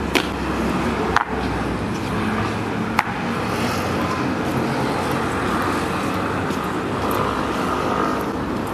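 Steady outdoor background noise like traffic and an open-air crowd, broken by three sharp clicks or knocks in the first three seconds.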